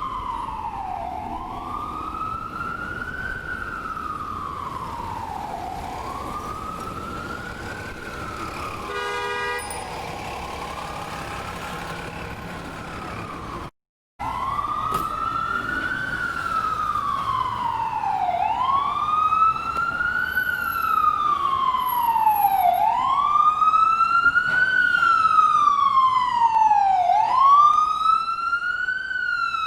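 Ambulance siren wailing, its pitch rising and falling about once every two and a half seconds. A brief horn-like blast sounds about nine seconds in, and after a short gap of silence about fourteen seconds in, the wail comes back louder.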